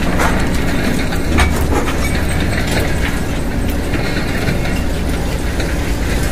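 Steel slag recycling plant machinery running: a steady low rumble from conveyors and motors, with a few sharp knocks in the first two seconds or so.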